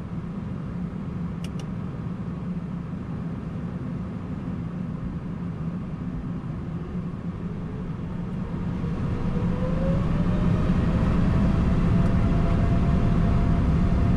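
Boeing 747-8 on its takeoff roll, heard from inside the cockpit as a steady low rumble. About eight seconds in, the four GEnx turbofans' whine rises as thrust builds, and the sound grows louder and then holds steady at takeoff power.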